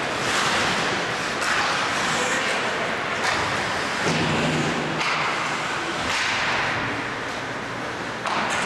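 Ice hockey play on a rink: skates scraping the ice under a steady rush of noise, broken by about five sharp cracks and thuds of sticks, puck and boards.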